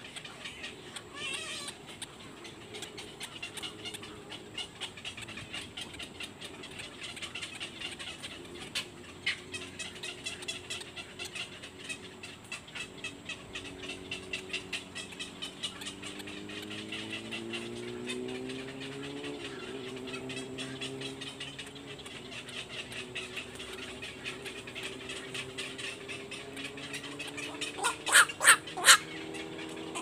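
Black-crowned night heron chicks in the nest giving a rapid, continuous ticking chatter, with four louder sharp calls near the end. A low hum slowly rises in pitch behind it midway.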